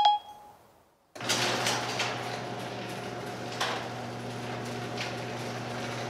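A short electronic chime, then about a second later a LiftMaster garage door opener's motor starts and runs steadily with a low hum, raising the sectional door along its track with occasional clicks and knocks.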